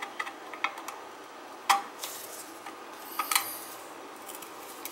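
Scattered sharp metallic clicks and taps of a screwdriver against a steel electrical junction box while its wires are worked on, the loudest click a little under two seconds in and a quick few together near three and a quarter seconds.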